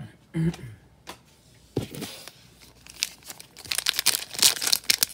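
Foil wrapper of a Pokémon TCG booster pack crinkling and tearing as it is opened by hand, starting about two seconds in and growing busier and louder toward the end.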